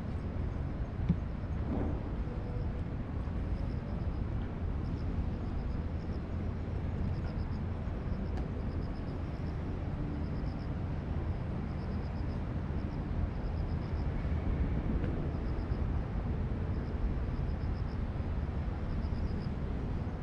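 Steady low rumble of city traffic along a street. Over it runs a faint high chirping that repeats about once a second, and there is a single sharp tick about a second in.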